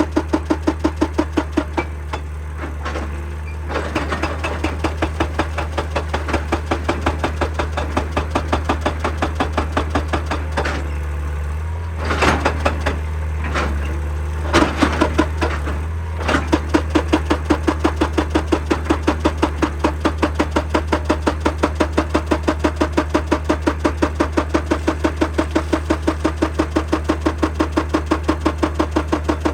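Excavator-mounted hydraulic rock breaker hammering rock in a rapid, even run of blows over the machine's steady engine drone. The blows stop a couple of seconds in, giving way to a few scattered heavy knocks, and start again about halfway through, running evenly to the end.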